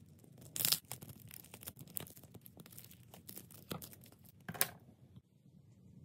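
Crackle slime squeezed and torn apart by hand: a run of soft crackles and tearing sounds, with louder bursts just under a second in and at about four and a half seconds.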